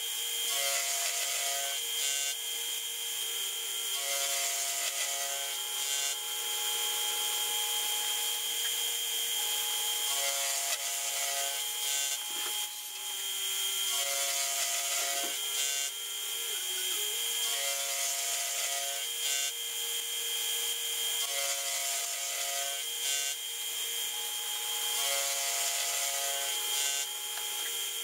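Vertical milling machine cutting 45-degree ratchet teeth into A2 tool steel on a rotary table, played back sped up. A steady whine runs throughout, and a cutting grind drops out and returns every few seconds as each tooth is cut and the table is indexed to the next.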